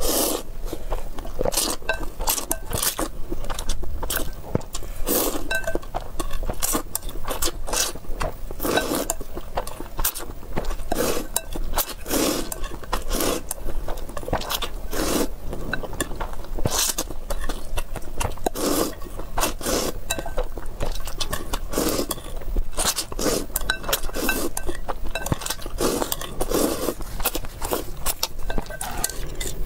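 Close-up slurping and chewing of noodles in spicy broth, in repeated sudden wet bursts, with chopsticks scraping and clinking against the bowl.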